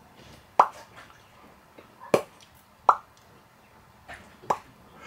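A man making hollow mouth pops with his pursed lips, about five of them at uneven intervals, each a short pop that drops slightly in pitch.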